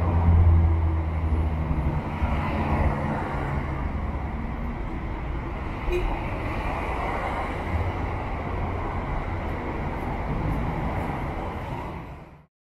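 Street traffic: a motor vehicle's engine hums close by, loudest in the first couple of seconds, over a steady city background, which fades out near the end.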